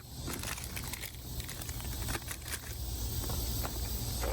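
Snack and candy packages being handled and sorted: scattered light crinkles and taps of wrappers and packets over a steady low rumble.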